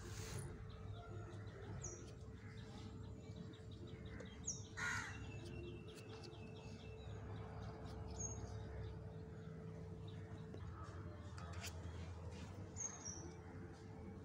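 Faint bird calls: short high chirps every few seconds and a louder call about five seconds in, over a steady low hum.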